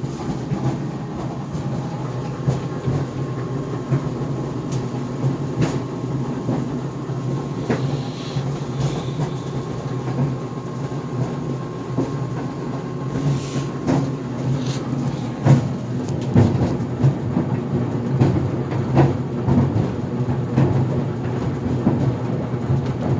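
GE Profile Harmony clothes dryer running with a steady low rumble and hum of the tumbling drum, broken by irregular knocks and bangs, more of them in the second half. The banging is the unexplained noise the owner is trying to track down.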